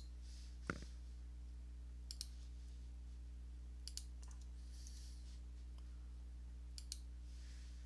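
Computer mouse clicking: a single louder click about a second in, then three quick pairs of clicks at about 2, 4 and 7 seconds, over a steady low electrical hum.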